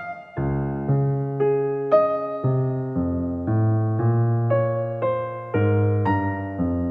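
Background piano music: a slow, gentle melody of single notes struck about twice a second, each fading away, over held low notes.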